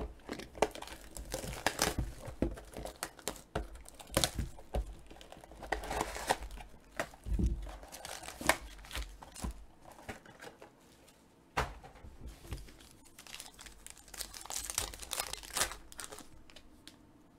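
Plastic shrink-wrap crinkling and tearing as a sealed trading-card box is unwrapped, then a foil card pack being torn open near the end: irregular crackles and sharp rips, with a quieter gap in the middle.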